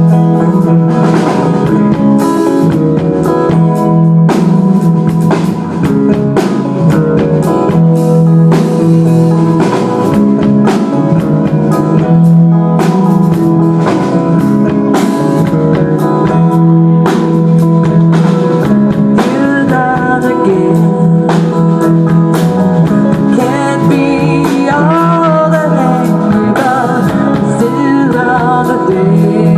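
Rock band playing a passage with no sung words: drum kit, bass and guitars keep a steady beat under sustained chords. In the second half a wavering, bending melody line rises over the top.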